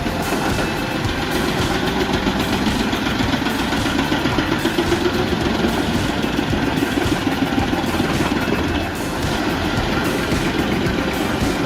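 Large wood chipper truck running steadily, a continuous heavy mechanical drone from its engine and drum.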